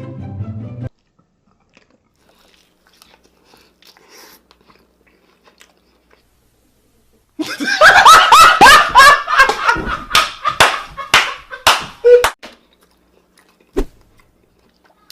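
Background music cuts off just under a second in, followed by faint mouth sounds of chewing. About seven and a half seconds in, loud laughter breaks out in a run of repeated bursts for about five seconds, then stops.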